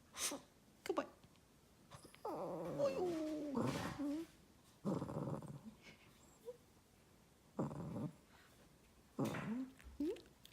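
A shih tzu dog vocalizing in a series of drawn-out, pitched moans, the 'singing' it is being coaxed to do. The longest starts about two seconds in and lasts about two seconds with a wavering pitch. Shorter ones come before and after it.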